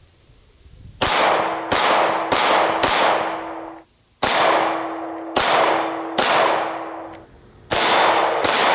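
9mm Glock pistol shots in three strings: four quick shots, a pause, three more, then two near the end, each with a long echoing tail. Between the shots a steady ring carries on, a steel target ringing from the hits.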